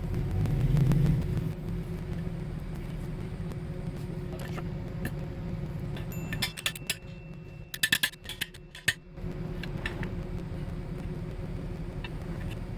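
A motor vehicle engine running steadily at idle. A quick flurry of metallic clinks and rattles comes a little past the middle.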